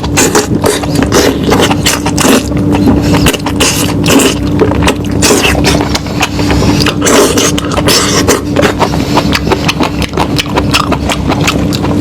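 Close-miked eating: a person chewing and smacking on lamb meat, with a dense run of wet clicks and smacks and a steady low hum underneath.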